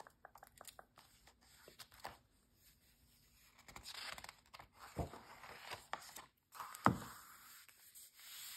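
Glossy magazine cover and pages being turned and smoothed by hand: faint taps, then paper swishing and rustling, with two soft thumps about five and seven seconds in, the second louder.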